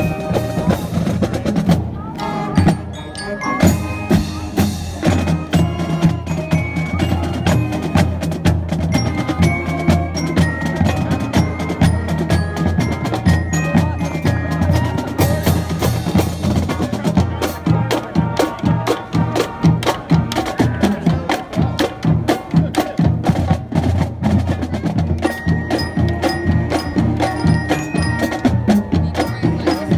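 Marching band playing as it marches: brass horns, saxophones and sousaphones over a drum line of snare and bass drums keeping a steady, driving beat.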